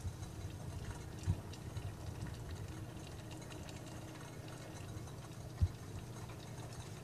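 Quiet kitchen background: a steady low hum with two soft, dull thumps, about a second in and near the end.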